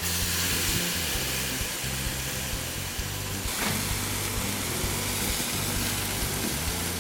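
Marinated chicken thighs sizzling on a hot barbecue grill, a steady hiss: the sign that the grill is well heated. Background music plays under it.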